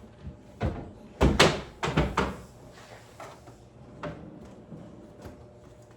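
Kitchen cabinet door and dishware knocking as a container is put away: a cluster of sharp knocks and clatter about a second in, loudest around a second and a half, then a few lighter taps.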